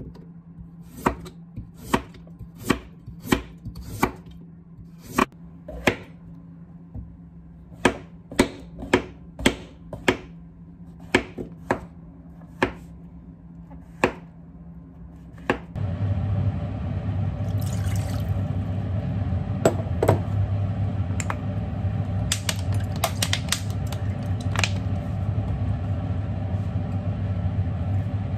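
Chef's knife chopping carrot and then mushrooms on a wooden cutting board: sharp single knocks, about one or two a second. A little over halfway through, a steady low hum takes over, with a few light clinks over it.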